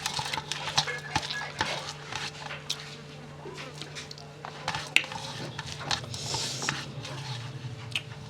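Scattered light clinks and taps of dishes and utensils while someone eats, over a steady low hum.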